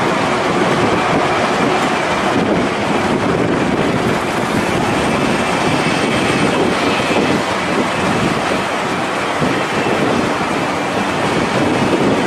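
Bombardier Flexity Outlook streetcar running along its rails as it pulls away, under a steady rush of noise, with a faint high wheel squeal about halfway through.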